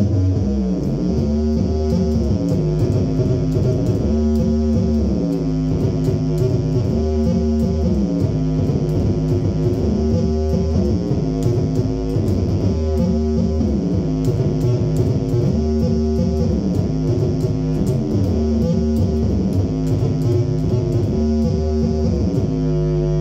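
Electric bass guitar played through a Phil Jones Bass amp with effects, a low melodic phrase coming round about every three seconds. Near the end a held chord rings on steadily.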